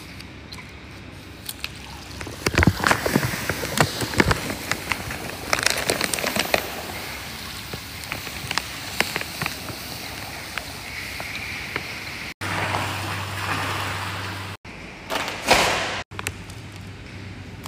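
Pool salt (pure dried vacuum salt) poured from a plastic sack into pool water: crackling and rustling of the bag over a rush of salt and splashing water, with a steady low hum after a cut about two-thirds of the way through.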